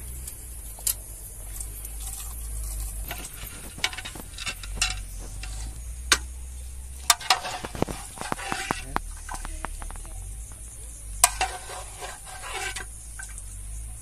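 Metal ladle stirring and scooping through a large metal cooking pot of liquid, with scattered sharp clinks and scrapes against the pot. The clinks are busiest about halfway through and again near eleven seconds in.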